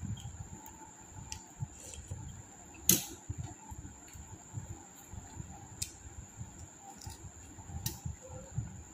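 Close-up chewing and mouth sounds of a person eating, with soft uneven low munching and several sharp clicks, one louder near three seconds in.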